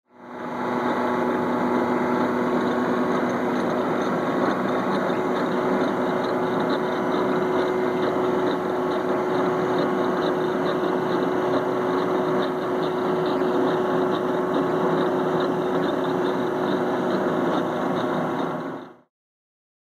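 Lead chain (lead core rope) machine running: a steady mechanical hum with a light, fast ticking. It fades out about a second before the end.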